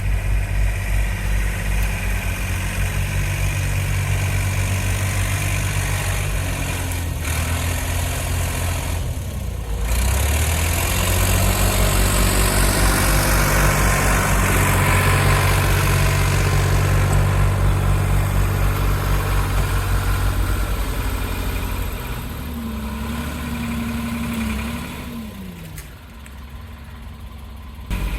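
Doosan DX35z mini excavator's diesel engine running at working speed, held loud for most of the stretch, then easing back toward idle near the end.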